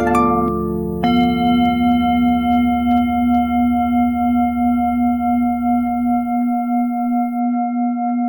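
A quick falling run of ringing tones, then a singing bowl struck once about a second in. It rings on with a slow, steady wobble over a low drone that fades out near the end.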